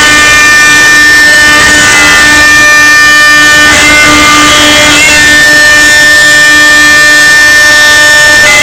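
CNC router spindle cutting laminated hardwood: a loud, steady high whine that dips slightly in pitch a few times as the bit takes load.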